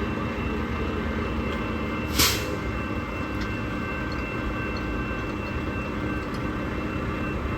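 Union Pacific hi-rail truck running steadily while its rail guide wheels are being raised to take it off the track, with one short sharp hiss about two seconds in.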